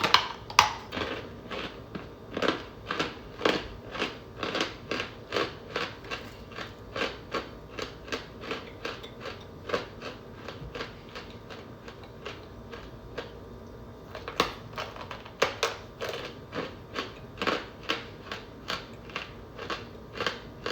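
Homemade chips of baked, scented cornstarch being crushed in the fingers: short, sharp crunches about twice a second, with a brief lull in the middle.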